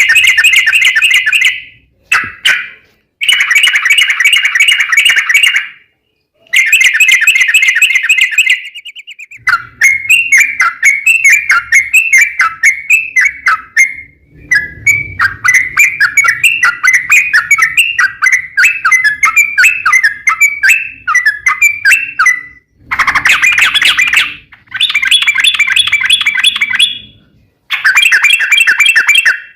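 Yellow-vented bulbul singing a long, rapid, chattering 'ropel' song. It comes in several loud bursts of quick repeated notes with brief breaks, and one long unbroken run through the middle.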